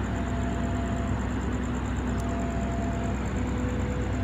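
Steady hum of a diesel engine idling on a train standing at a railway station, a continuous low drone with a few steady tones that fade in and out.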